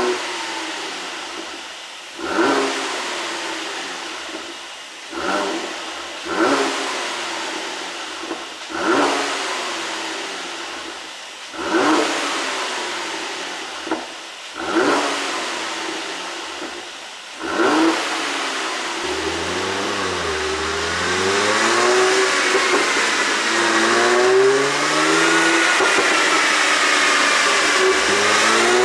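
Mercedes-AMG GLC43's twin-turbo V6 exhaust on an ECU pop tune, being blipped about eight times. Each rev rises sharply and falls back slowly. For the last third the revs are held up and swing up and down.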